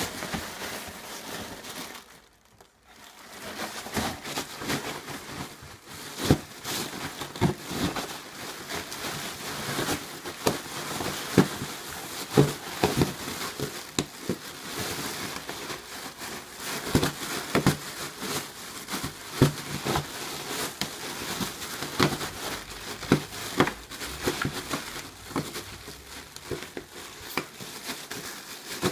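Plastic air-cushion packing film crinkling and rustling as a Cairn terrier burrows and pushes through it in a cardboard box, with many sharp snaps, and a short lull about two seconds in.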